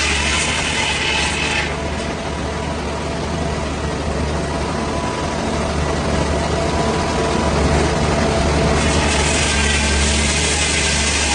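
Heavy wood-cutting machinery with its engine running steadily. A bright hissing rides over it for the first couple of seconds and comes back about nine seconds in.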